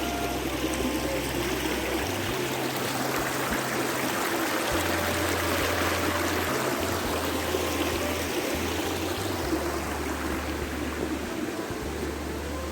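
Steady rush of stream water, with the low notes of background music underneath.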